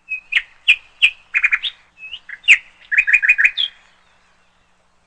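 A small songbird chirping: a string of short, sharp notes, some in quick runs of three or four, stopping about four seconds in.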